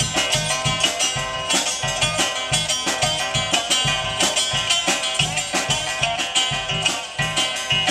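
Live blues band playing an instrumental passage: an archtop guitar picked with a quick, even rhythm over a steady drum beat.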